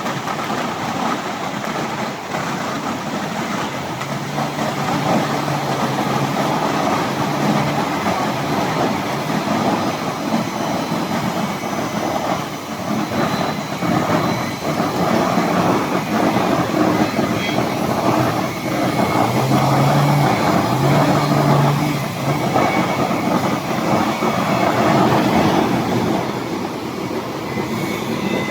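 Multiple band saw wood-cutting machine running, a loud steady rushing mechanical noise, with low hums that come and go twice.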